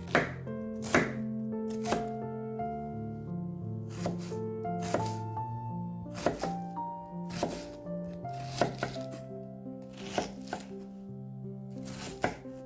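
Background music with sustained notes, over sharp knife strokes on a cutting board, about one a second.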